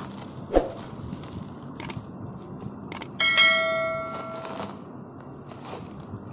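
Two short clicks and then a bell chime that rings out and fades over about a second and a half: a subscribe-button bell sound effect. Under it is the rustle of paper packaging being handled, with a sharp knock just after the start.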